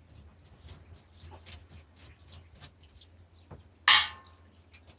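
Small birds chirping repeatedly in short high calls, over a steady low hum, with one sharp clatter about four seconds in.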